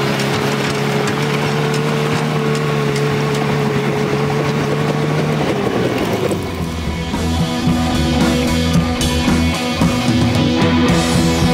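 Homemade minitractor engine running at steady revs as the tractor pulls up a snowy slope. About six seconds in it gives way to rock music with electric guitar and drums.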